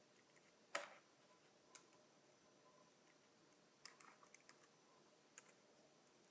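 Scattered key presses on a NeXT non-ADB keyboard: a few faint, separate clicks, with a quick run of clicks about four seconds in.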